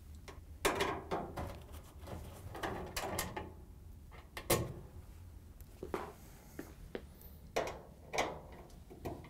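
Steel nut driver and screws clicking and knocking against a dryer's sheet-metal bulkhead as the screws are backed out and pulled free: a series of sharp clicks and short rattles.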